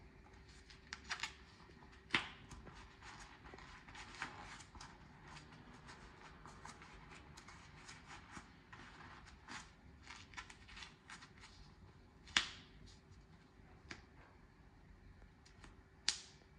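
Brave GK Venom goalkeeper gloves being pulled onto the hand: irregular rustling and small clicks of latex and fabric handled, with a few sharper snaps as the elastic wrist cuff is tugged and released.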